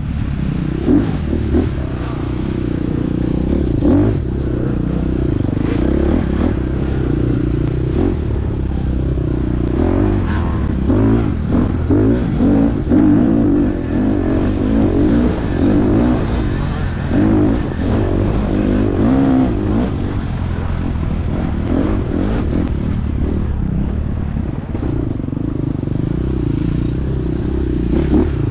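Four-stroke dirt bike engine under hard riding, its revs rising and falling continuously as the rider works the throttle. Scattered short clattering knocks run through it.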